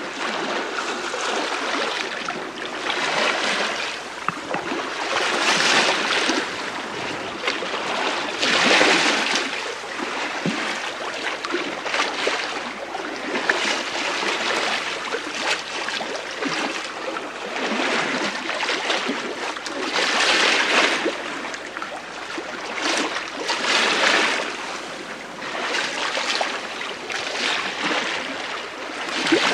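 Bow wave of the sail training ship STS Malcolm Miller under sail in light wind, heard from the lee quarter: a continuous rush and hiss of water along the hull that swells and eases every few seconds.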